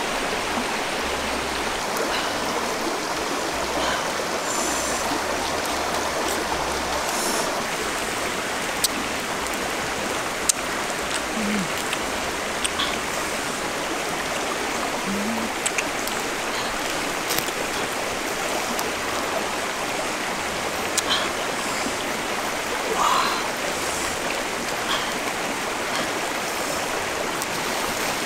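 Steady rushing of a shallow, rocky river, with a few sharp clicks and short chirps over it.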